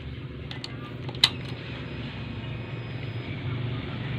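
Honda Verza's single-cylinder engine idling steadily through an MHR aftermarket exhaust, a low even exhaust note. A sharp click sounds about a second in.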